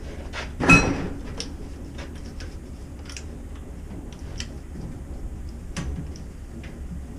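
A sharp metallic clank about a second in that rings briefly, then scattered light clicks and knocks of metal parts being handled.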